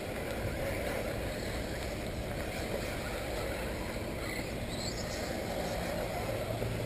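Steady rushing outdoor background noise, with a couple of brief rising high-pitched whines just before the five-second mark.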